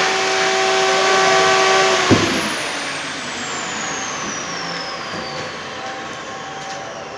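An electric power tool motor running with a steady whine, switched off with a click about two seconds in, then winding down, its whine falling steadily in pitch and fading.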